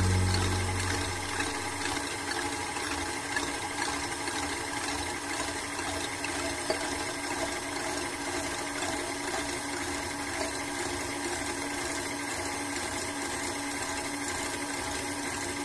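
A KitchenAid Artisan stand mixer running steadily, its wire whip beating egg whites into meringue in the metal bowl.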